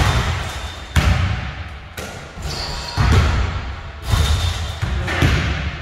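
Basketballs bouncing on a hardwood gym floor, a sharp bounce about every second, echoing in the large hall.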